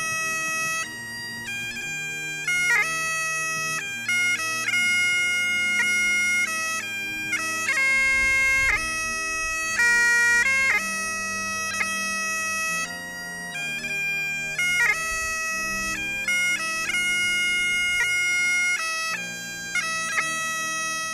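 Great Highland bagpipe played solo, a slow tune of held notes with quick grace-note flicks between them.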